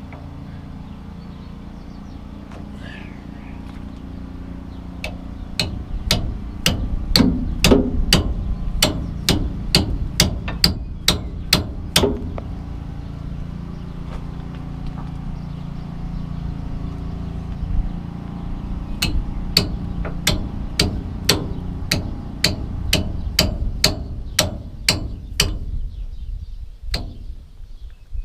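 Hammer blows on a grease joint rejuvenator, about two a second, in two runs with a pause between them, driving oil into a seized grease fitting to free it so it will take grease again. A steady low hum runs underneath.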